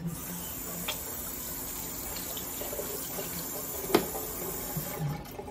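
Kitchen faucet running into a stainless-steel sink while hands are rinsed under the stream. It comes on suddenly at the start and shuts off shortly before the end, with one sharp knock about four seconds in.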